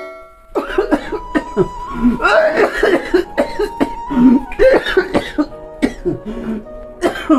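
A man coughing again and again, in short bursts with groans between, over background music.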